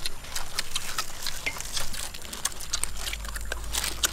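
Close crackling and crinkling from crisp crackers and a plastic bag being handled: a dense run of quick, sharp, irregular clicks. A steady low rumble runs underneath.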